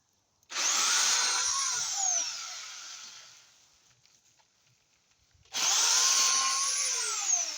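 Pole chainsaw with a newly tightened chain run up twice, about five seconds apart: each time the motor whines up quickly, holds for a second or two, then winds down as the trigger is let go.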